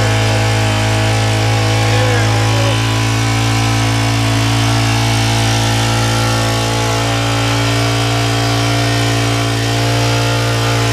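Honda gasoline water pump's small engine running at a steady speed.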